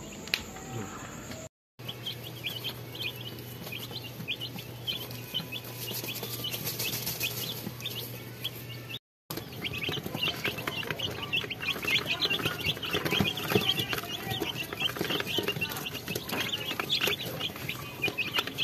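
Brood of nine-day-old Rhode Island Red and Black Australorp chicks peeping: many short, high cheeps overlapping, growing busier from about halfway.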